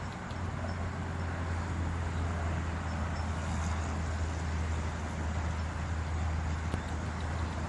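Steady low rumble with an even hiss over it, like a running vehicle.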